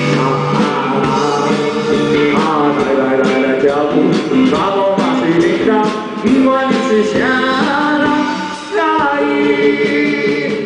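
Live rock band with a male lead vocalist singing over drums and guitars.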